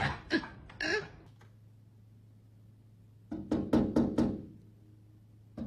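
A sandhill crane pecking at a glass sliding door with its beak: a quick run of sharp knocks on the glass a little past halfway, and more knocks starting right at the end.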